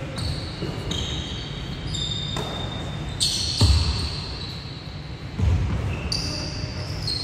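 Basketball game on a hardwood gym court: sneakers squeaking on the floor in short, high-pitched squeaks, with heavy thuds of the ball bouncing, the loudest about three and a half and five and a half seconds in.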